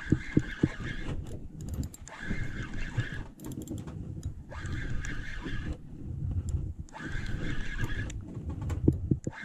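Spinning fishing reel cranked in spells of about a second, its gears whining while each spell lasts, as a hooked catch is wound up from the bottom. A low rumble runs underneath, and there are a few sharp clicks.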